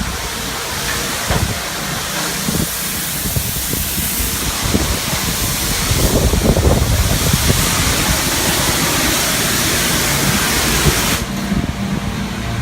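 A steady, loud rushing hiss that cuts off suddenly about eleven seconds in.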